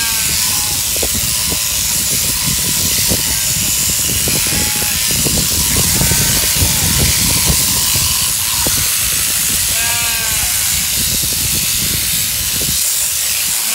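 Mechanical sheep-shearing handpiece on a jointed drive arm running steadily with a hiss and rapid clatter as it cuts through the fleece. Sheep bleat several times over it, near the start, in the middle and near the end.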